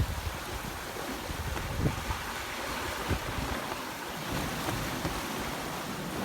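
Wind and rushing sea water around a sailboat under way, with gusts buffeting the microphone in irregular low thumps.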